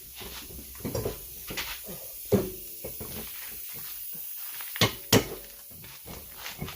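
Metal knocks and clanks as a wheel is fitted onto the hub: one knock with a short ring about two seconds in, then two sharp knocks in quick succession near the middle.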